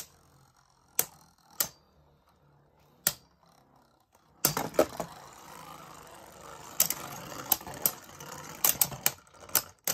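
Two Beyblade Burst spinning tops clashing in a plastic stadium, with sharp plastic clacks as they hit. A few single clacks come first, then from about halfway a steady whirring rasp with rapid clacks as the tops grind against each other.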